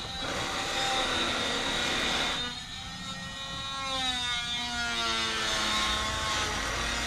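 Power saw cutting lumber twice, with the motor's whine sliding in pitch between the two cuts.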